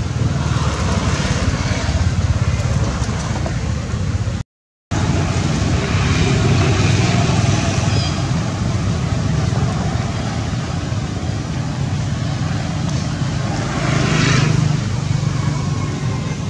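Steady outdoor rumble and hiss with no clear single source. It cuts to silence briefly about four seconds in and swells for a moment near the end.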